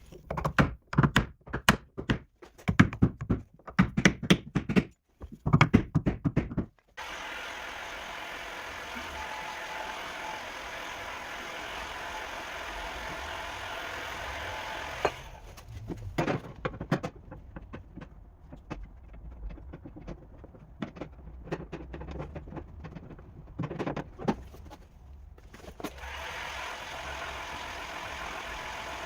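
Sharp knocks and taps in quick succession for several seconds, then a steady hum with scattered clicks and thuds.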